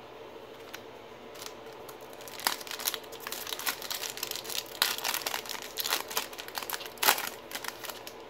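Wrapper of a baseball card pack being torn open and crinkled by hand. It starts about two seconds in as a dense run of crackles, with the loudest crackle near the end.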